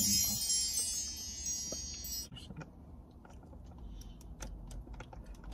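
A bright, high chime rings and fades out about two seconds in. Faint scattered clicks follow as a small baby-food container is handled.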